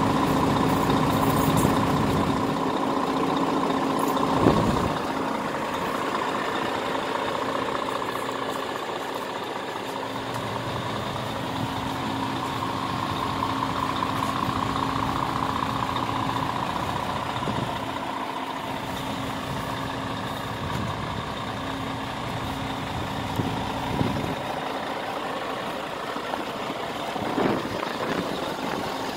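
Scania R490 tractor unit's straight-six diesel idling steadily, with one thump about four seconds in.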